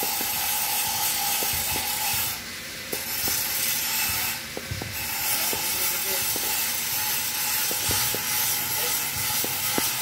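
Irregular light clicks of a smartphone being handled and operated, over a steady hiss.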